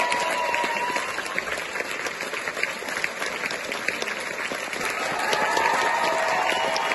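Theatre audience applauding a curtain call: dense, sustained clapping from a full house, with a few faint held tones above it at the start and again near the end.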